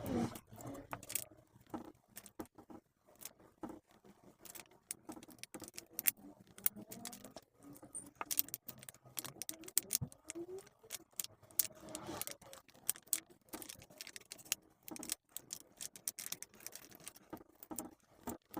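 Irregular small clicks and light taps of hand tools and phone parts being handled during a smartphone back-glass removal. There is no steady rhythm, and a few louder clicks stand out.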